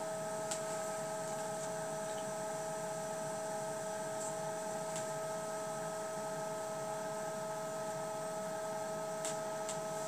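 Fike VESDA aspirating smoke detector's aspirator fan running steadily: an even hum with a steady whine over it, as the unit draws sample air in and blows it out.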